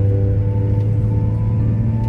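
Background music: slow, sustained chords that shift about half a second in and again later, over a deep steady bass drone.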